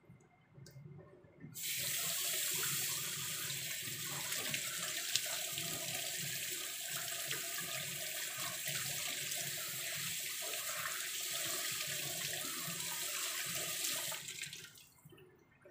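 Kitchen tap running steadily into a stainless steel sink, splashing over a gutted round scad and the hands rinsing it. The water comes on suddenly about a second and a half in and tails off near the end as the tap is shut.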